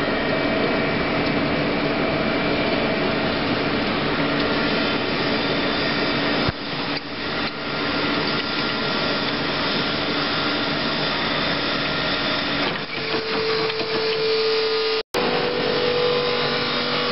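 Steady mechanical running noise of industrial machinery. About two-thirds of the way through, its hum shifts to a higher note, and near the end the sound cuts out for an instant.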